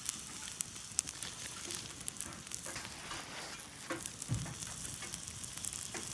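Water at a rolling boil in a titanium canteen cup on a grill grate over a wood fire: a steady hiss and bubbling, with sharp crackles from the burning wood and a dull thump a little past the middle.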